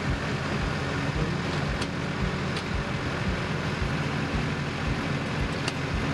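A motor vehicle running steadily, with a low engine hum under even road or wind noise and regular low knocks.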